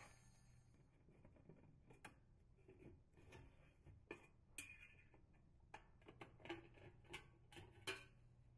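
Faint, scattered clicks and light metallic taps, about ten of them, as a dishwasher's stainless-steel lower access panels are handled and unscrewed with a screwdriver.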